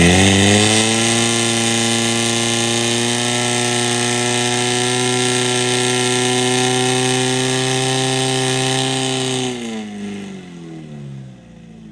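Portable fire pump engine running at high revs under load, pumping water out through the attack hoses. Its pitch climbs and holds steady, then slides down and fades about nine and a half seconds in as the engine is throttled back.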